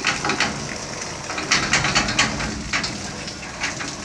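Water spurting and splashing out of a tanker's discharge pipeline onto wet ground as the line is flushed, with irregular spatters that are heaviest in the middle.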